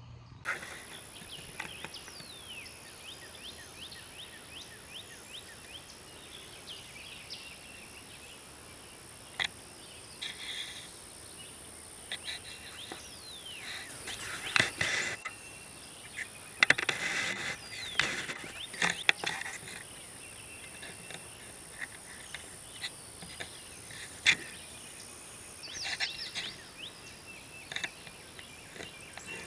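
Open-air ambience with wild birds chirping and calling in short downward-sliding notes over a steady hiss, and a few louder rustling, noisy bursts and sharp clicks near the middle.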